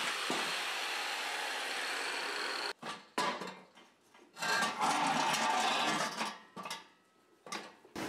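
Angle grinder with a cutting disc cutting through a steel stove chimney pipe: a steady running noise for about two and a half seconds that cuts off suddenly, then, after a short silence, a second steady stretch of about two seconds.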